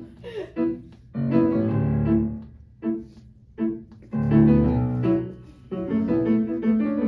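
Grand piano playing a musical-theatre accompaniment in short phrases of chords, with brief gaps between them.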